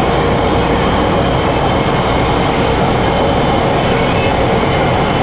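Nanchang Metro Line 2 train running at speed, heard from inside the passenger carriage: a steady rumble of wheels on rail with a faint steady whine above it.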